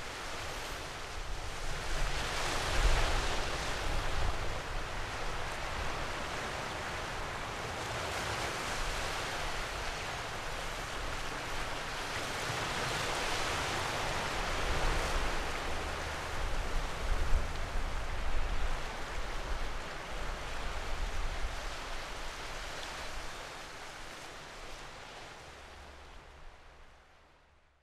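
Ocean surf: a steady rushing wash that swells and eases in slow waves, fading out near the end.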